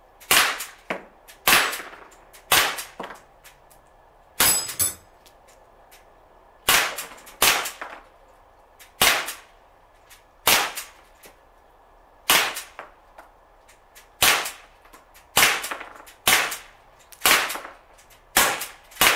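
Sig Sauer MPX .177 pellet pistol, fed from a high-pressure air tank, firing semi-automatically: about fifteen sharp shots, roughly a second apart and unevenly spaced. About four and a half seconds in, one shot rings off a steel paddle of a resetting target, flipping it.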